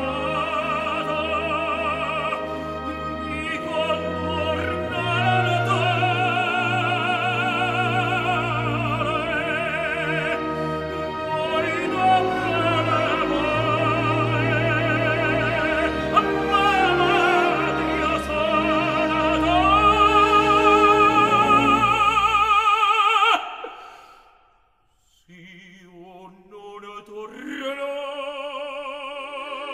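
Operatic tenor singing an Italian aria with wide vibrato over a full orchestra. The music breaks off abruptly about two-thirds of the way through. After a moment of near silence, a soft orchestral passage begins and a voice enters near the end.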